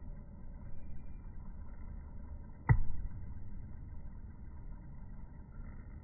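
Steady low rumbling background noise, with one sharp knock a little under three seconds in, the loudest sound.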